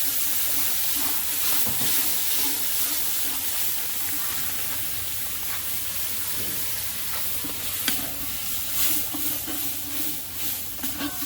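Curry seasoning sizzling and frying in hot oil in a karahi, with water just added to the very hot pot. A sharp knock about eight seconds in.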